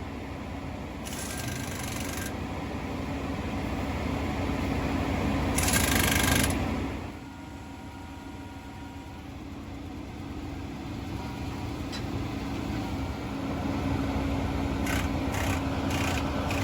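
An engine running steadily, with two short bursts of hissing noise and a few light ticks near the end.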